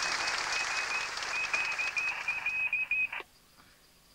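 Applause from a seated assembly: a dense, even patter of many hands clapping, with a high, rapidly pulsing tone over it in its second half. It cuts off abruptly about three seconds in, leaving near silence.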